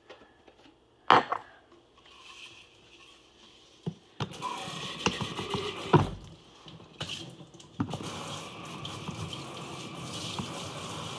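Kitchen tap running into a sink while a water bottle is rinsed under it. A sharp knock comes about a second in, the water starts about four seconds in, and the bottle knocks against the sink now and then.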